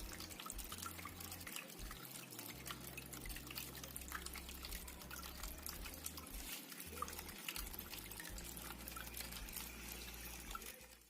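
Water trickling and dripping from a small cement tabletop waterfall fountain: a faint steady splash with many small, irregular drips. It fades out just before the end.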